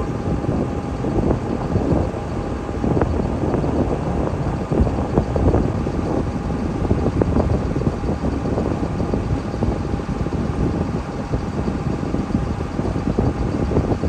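Steady, loud mechanical running noise, like engines or fans, with a faint constant hum and no distinct knocks or changes.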